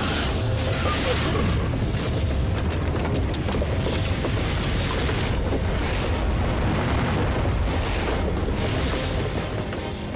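Cartoon sound effect of a flood of food and packages bursting out of a building and piling up: a continuous deep rumble with scattered clattering impacts.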